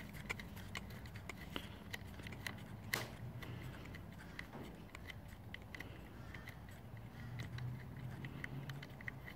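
Faint, irregular metallic clicks and clinks of a 10 mm ring spanner loosening the nut on a car battery terminal, over a low steady hum.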